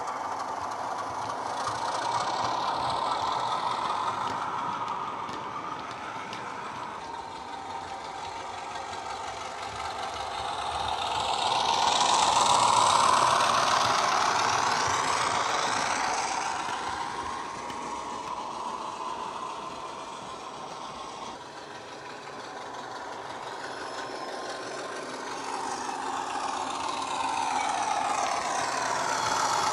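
Loksound 5 sound decoder in a Heljan Class 33 model locomotive playing the SWD recording of a Class 33's Sulzer diesel engine running, through a 27 mm bass-enhanced speaker. It grows loudest as the model passes close, about 13 seconds in, fades, then swells again near the end.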